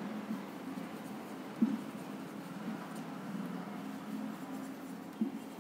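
Marker pen writing on a whiteboard: faint strokes of the tip across the board.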